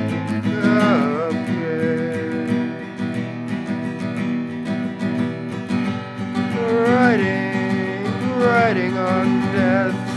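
Acoustic guitar strumming chords steadily. A wordless, wavering voice carries a melody over it, first about half a second in and again from about six seconds on.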